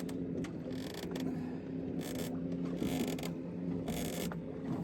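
A boat's motor humming steadily, with irregular short scraping, rasping noises over it.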